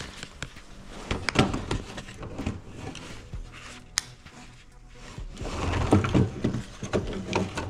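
Handling noises of firearm gear being moved in a hidden storage spot: irregular clicks, knocks and clatter, with one sharp click about four seconds in.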